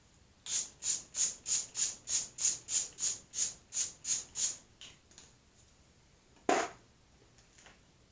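Pump-mist setting spray bottle spritzed rapidly, about a dozen short hissing sprays at roughly three a second, trailing off into a few fainter spritzes. Near the end comes a single louder, fuller clunk.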